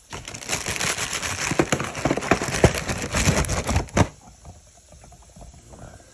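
Cheez-It cracker box being rummaged, with dense crinkling and crackling for about four seconds that stops abruptly.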